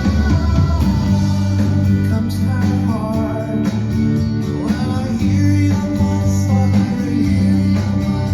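A recorded guitar-led song playing back through a hi-fi amplifier and loudspeakers, with a steady bass line.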